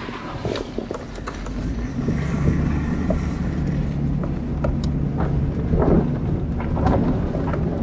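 Car engine running at low speed as it drives over a rough, rocky dirt track, with scattered knocks and clicks from the bumpy going. The engine grows louder about two seconds in.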